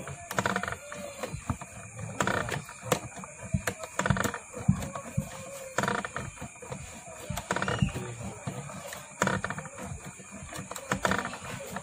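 Small coil winding machine turning a transformer bobbin as enamelled copper wire is wound on, running unevenly in repeated surges about once a second.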